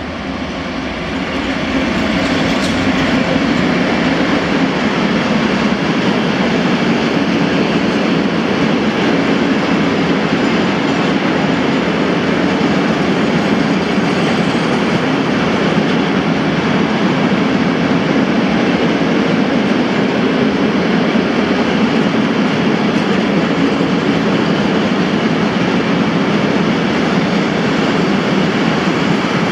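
ET22 electric freight locomotive passing close by, followed by a long train of loaded open freight wagons rolling past. The wheels on the rails make a loud, steady rolling rumble that builds over the first couple of seconds and then holds.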